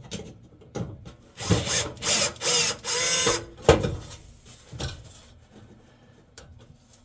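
A driver backing out the screws that hold a Samsung gas oven's igniter to the burner tube, in three short runs, followed by a sharp metallic click and a few light knocks.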